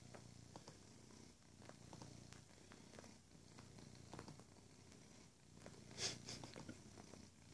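Domestic cat purring quietly and steadily as it kneads, with a brief scratchy noise about six seconds in.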